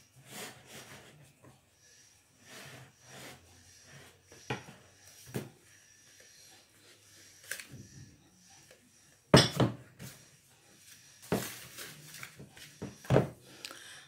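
Wire whisk working flour into a thick batter in a plastic mixing bowl: soft scraping and rubbing with small clicks, then a few louder knocks near the end.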